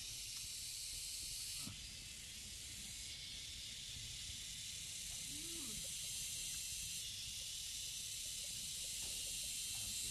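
Steady high-pitched hiss that steps louder or softer a few times, with a few faint low sounds under it.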